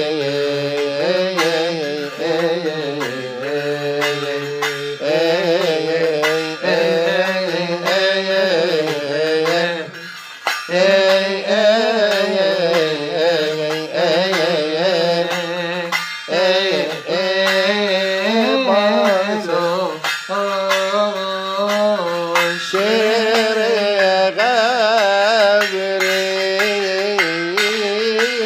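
Coptic liturgical hymn chanted with long, wavering melodic lines, kept in time by strokes of small hand cymbals.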